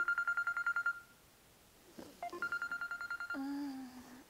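Smartphone alarm ringing: a high, rapidly pulsing beep trill lasting about a second, sounding twice a couple of seconds apart. A low, drawn-out sleepy groan comes near the end.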